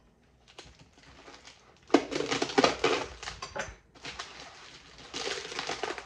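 Clear plastic air-cushion packaging wrap crinkling and crackling as it is handled and pulled off a packed planter. It comes in two busy stretches, starting about two seconds in, with a short lull near the middle.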